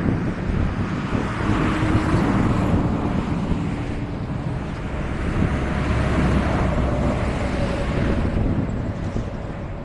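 Boeing CH-47 Chinook helicopter running, a steady low rumble mixed with wind noise on the microphone.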